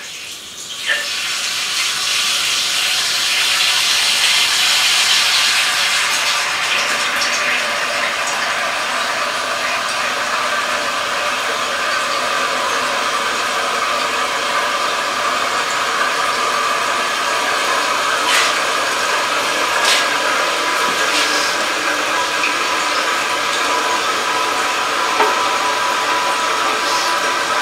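Toilet tank fill valve hissing steadily as water runs into the newly installed toilet's empty tank after the supply valve is opened, with a faint whistle and a few small ticks.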